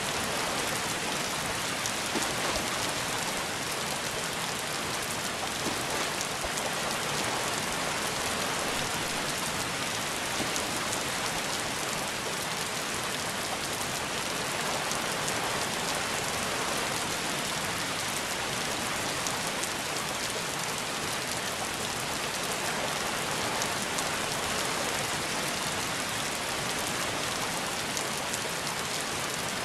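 Steady rain falling: an even hiss flecked with many small drop taps, holding at one level throughout.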